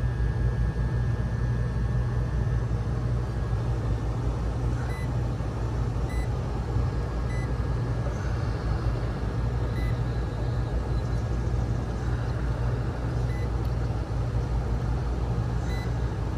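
Steady low hum of a Carrier rooftop HVAC unit running, with faint short high-pitched beeps at uneven intervals.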